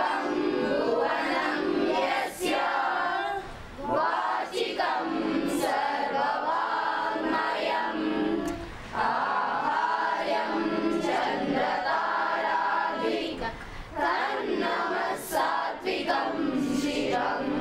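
A group of schoolgirls singing a prayer together, in sung phrases with short breaks for breath.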